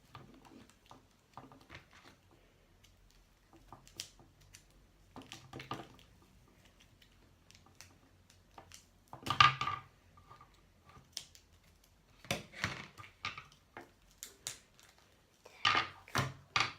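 Hands working a small plastic toy horse and its packaging: scattered rustles, clicks and taps, loudest about nine seconds in and again near the end.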